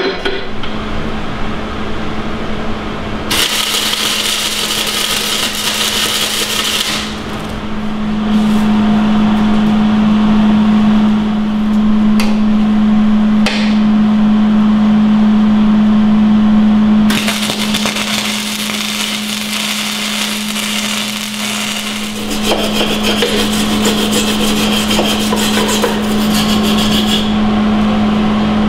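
Hobart wire-feed (MIG) welder arc crackling and buzzing in long passes as steel patch plates are welded onto a mower deck, with a steady buzz running underneath.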